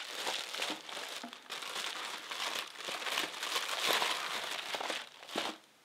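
Thin clear plastic bag crinkling and rustling in a dense run of small crackles as printed papers are handled and pulled out of it; it stops just before the end.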